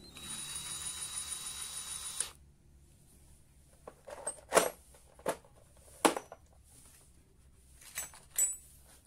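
Mollar CDID20500 cordless drill running for about two seconds and stopping abruptly, then five or six sharp clicks and taps spread over the next few seconds.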